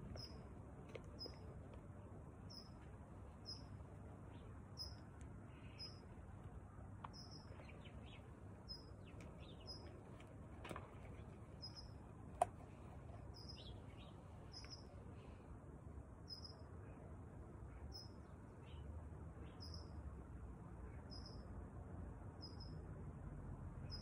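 Faint, short high chirps repeated at an even pace, with scattered fainter, lower chirps in the middle stretch over a low steady rumble. A single sharp click about twelve seconds in.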